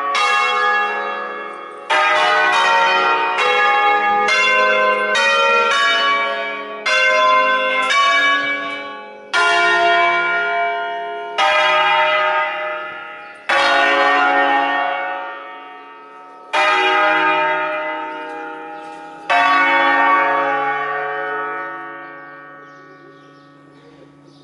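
Church bells from an eight-bell ring in D-flat, cast by Crespi in 1951, swung on wheels and struck one at a time in a tune of about a dozen strokes. The strokes come further apart as it goes on, and the last, about 19 seconds in, is left to ring out and fade.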